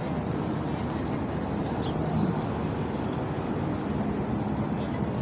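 Steady low rumble of distant city road traffic in the open air.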